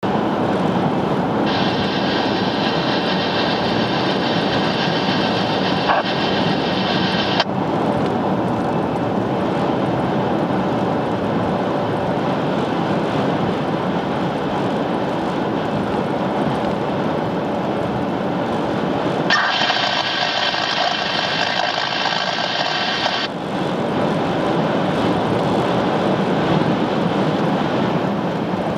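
A steady, loud rushing noise in whiteout blizzard conditions. Twice, a higher hiss joins it for about four seconds and then cuts off suddenly.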